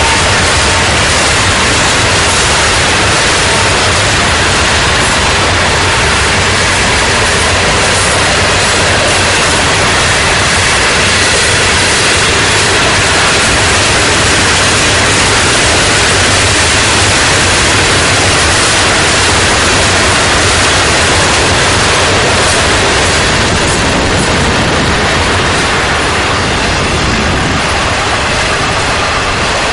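Steady roar of a freight train's cars rolling past on the rails, wheels on steel rail, easing slightly near the end.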